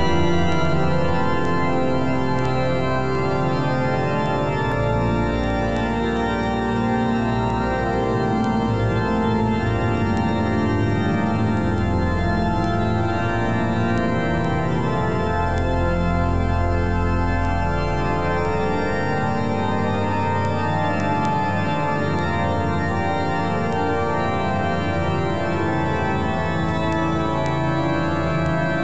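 Organ playing slow, sustained full chords over deep held bass notes, at a steady level throughout.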